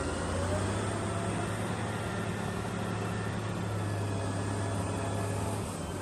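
Diesel engine of a Caterpillar 990 wheel loader running steadily as the loader lifts its bucket, with a faint rising whine about a second in.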